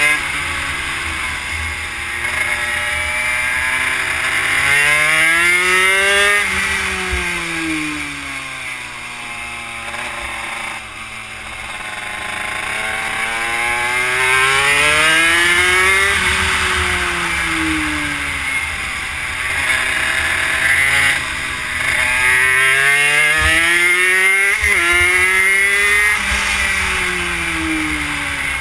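Honda CR80 two-stroke engine in a Yamaha YSR50 minibike, heard onboard while lapping a track: the revs climb and then fall off three times, with wind rushing over the microphone.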